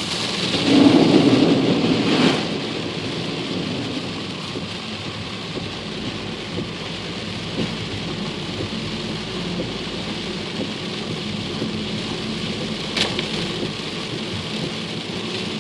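Flood water splashing and rushing against a Skoda Yeti SUV as it drives through, loudest in the first two seconds and then settling into a steady wash, with the engine running steadily underneath.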